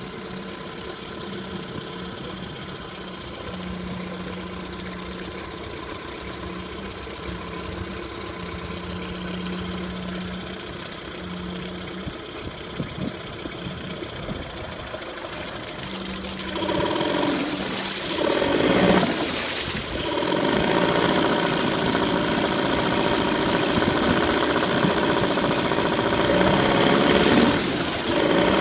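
8 hp Mercury outboard motor idling steadily, then throttled up about sixteen seconds in and running louder.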